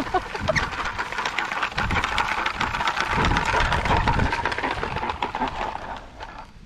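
Wheels rolling over a gravelly dirt road: a dense crunching crackle of many small clicks that fades away near the end.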